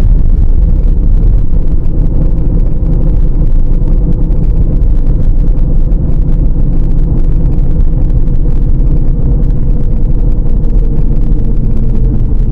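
Steady low rumble of a vehicle driving, engine and road noise running evenly with no distinct events.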